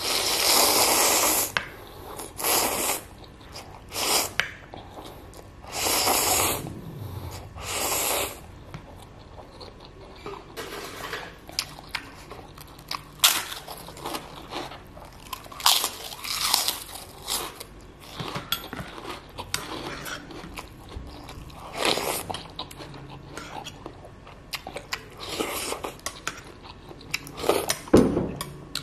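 Close-miked eating: a long slurp of instant fried noodles at the start, then wet chewing broken by many short crunchy bites of a crisp cracker.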